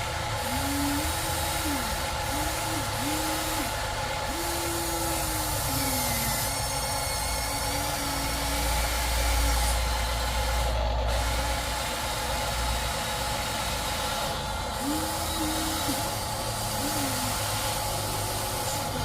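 Radio-controlled SANY model hydraulic excavator running: a steady electric whine, with a lower tone that rises, holds and drops again and again as the hydraulics are worked. A low rumble swells about eight to ten seconds in.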